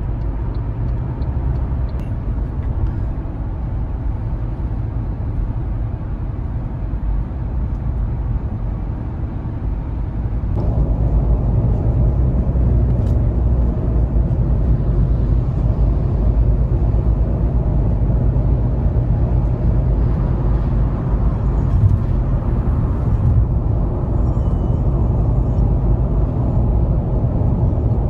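Steady road and engine rumble of a car driving at speed, heard from inside the cabin, growing louder about ten seconds in.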